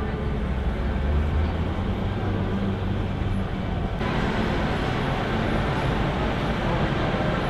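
Open-air parking tram moving: a steady low engine hum with road and wind noise. The sound changes abruptly about four seconds in.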